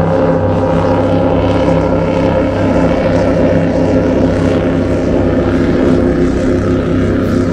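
Steady drone of an engine, holding one pitch throughout.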